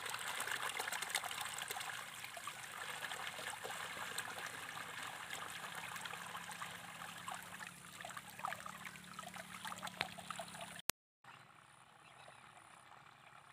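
Muddy irrigation water running along a dry earthen field channel: a steady trickling, gurgling rush full of small crackling clicks. It cuts off sharply about eleven seconds in, leaving only a faint hiss.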